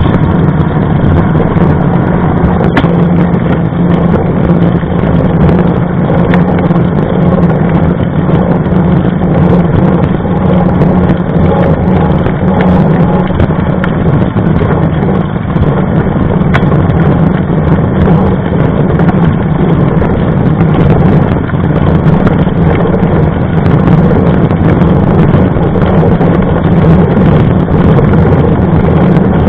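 Steady wind rushing over a bike-mounted action camera's microphone while riding on asphalt, mixed with the hum of the knobby mountain-bike tyre rolling on the road.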